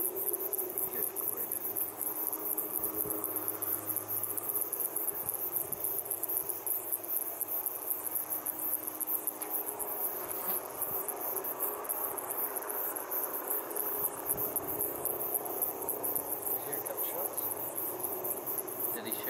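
Steady, rapidly pulsing high-pitched chirring of insects in the tussock, with a faint low drone of distant helicopters underneath.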